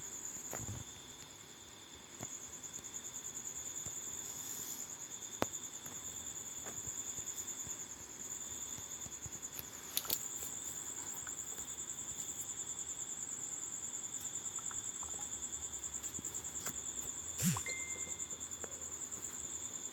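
Insects trilling in a steady, rapidly pulsing high chorus, with a few sharp clicks or knocks scattered through it, the loudest a little before the end.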